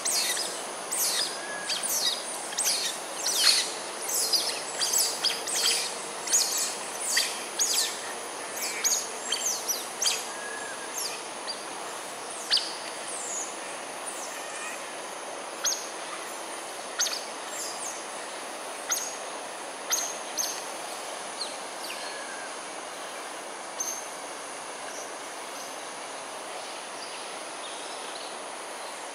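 Smooth-coated otters chirping: a rapid string of short, high-pitched falling chirps for about the first ten seconds, thinning to occasional single chirps after that, over a steady background hiss.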